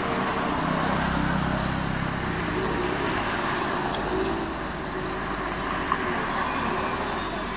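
Road traffic passing close by: engine hum and tyre noise from cars on the street. One vehicle's engine is loudest during the first few seconds. A short click comes about six seconds in.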